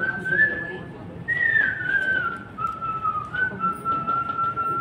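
A man whistling a song tune into a handheld microphone: a single clear melody line that slides between notes, pausing briefly about a second in and ending on a long held note.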